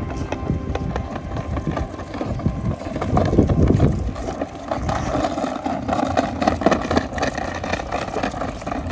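Kick scooter's small wheels rolling over stone paving: a steady rumble with many small clicks, growing louder about three seconds in.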